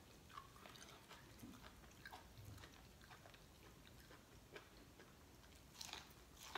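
Faint close-up chewing, then a few crisp bites into a cob of sweet corn near the end.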